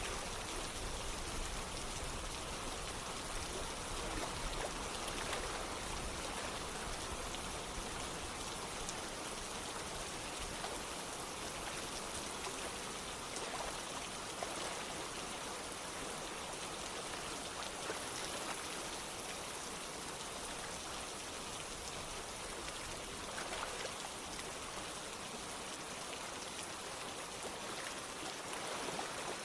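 Steady rain falling, with scattered drops pattering on a surface, mixed with running water like a stream.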